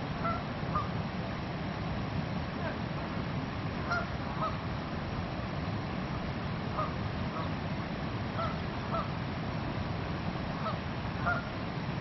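Egyptian geese calling, short separate calls repeated every second or so, over a steady low background noise.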